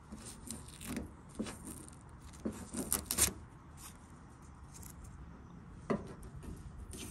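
Plastic trim-removal tool scraping leftover adhesive and paper backing off a truck's fender where a stick-on scoop was removed: short, irregular scrapes and clicks, bunched in the first three seconds, with one more sharp one near six seconds.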